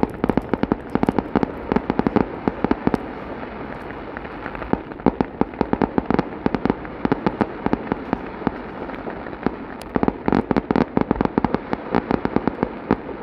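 Consumer fireworks going off at close range: a rapid, dense string of sharp pops and crackles over a steady hiss, thickest in spells of a few seconds.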